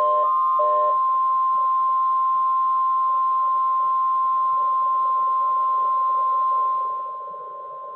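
NOAA Weather Radio 1050 Hz warning alarm tone, sounding as one loud, steady tone during a weekly test of the warning device and cutting off near the end. A few short beeps at two pitches overlap it in the first second.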